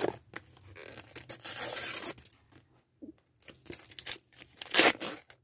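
Paper sticker packets and stickers rustling and tearing as they are handled. The sound comes in short bursts with light taps between, the loudest burst near the end.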